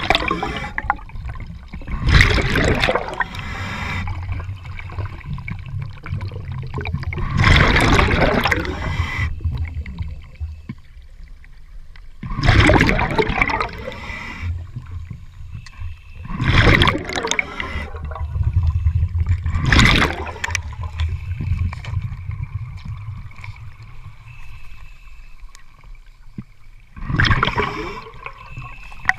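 Underwater breathing of a side-mount scuba diver: exhaled bubbles rushing out of the regulator about every four to five seconds, with a low rumble between breaths.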